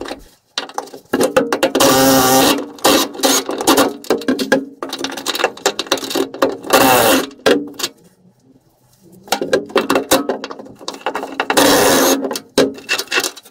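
Impact wrench running in several bursts with rapid clicking, undoing the last rear subframe bolt on a classic Mini.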